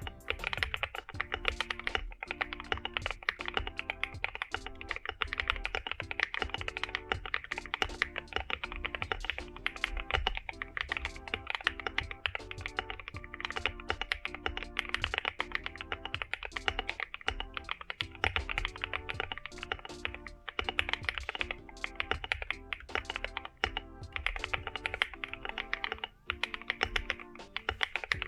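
Fast, continuous typing on an Akko MOD005 aluminium gasket-mount mechanical keyboard with Akko CS Snow Blue Grey switches and PBT double-shot keycaps: a dense run of keystrokes, laid over background music.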